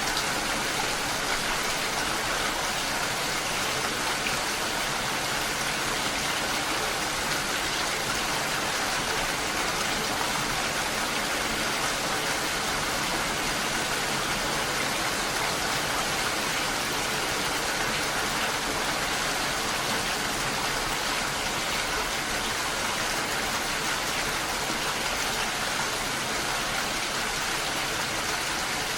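Steady rain falling, an even hiss that holds at the same level throughout, with no single drops, thunder or other events standing out.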